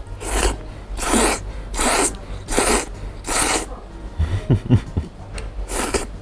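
A person slurping very thick, firm Yoshida udon noodles: five hard slurps in quick succession, about one a second, then a few short low sounds and one more slurp near the end.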